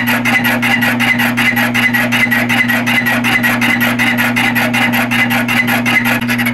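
Milling machine fly cutter taking a roughing pass of about three and a half thousandths across a cast iron vise base. The interrupted cut gives a rapid, even ticking, about eight strikes a second, over the steady hum of the mill.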